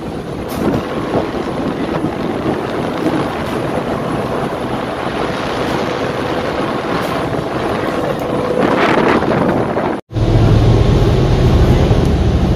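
Wind buffeting the microphone over the steady rumble of a car ferry under way. After a sudden break about ten seconds in, a louder, deeper steady engine drone.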